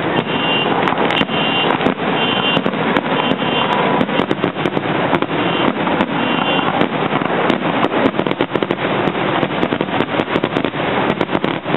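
Fireworks going off in a dense, continuous run of sharp bangs and crackles, with no break.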